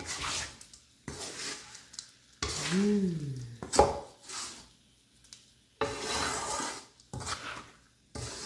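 Utensil stirring and scraping through stir-fried eggplant and anchovies in a pan, in a series of short scrapes with brief pauses and a few sharp clicks. A short rising-then-falling hum comes about three seconds in.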